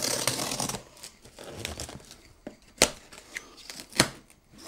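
A blade slitting the packing tape on a cardboard shipping box: a scratchy tearing for the first second or so. Then cardboard and tape are handled and pulled open, with a few sharp clicks.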